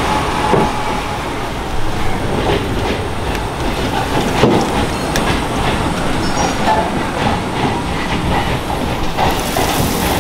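Train passing: a steady dense rumble with many light knocks from the wheels on the rails. Near the end, the sizzle of hot oil in a frying kadhai rises over it.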